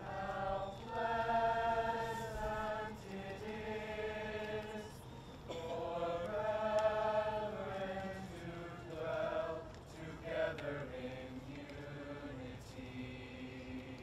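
A high school choir of boys and girls singing together in long held phrases that swell and ease, with brief breaks between phrases.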